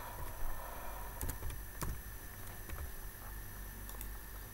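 A few faint, sharp clicks from a computer mouse over a steady electrical hum and hiss.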